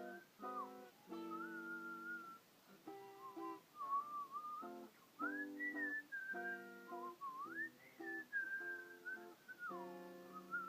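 Music: a person whistling a gliding tune over strummed guitar chords.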